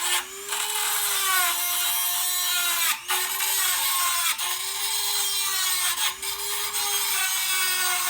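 Dremel 200 rotary tool running at high speed and cutting, a steady motor whine under gritty grinding noise. The grinding drops out briefly about three, four and six seconds in.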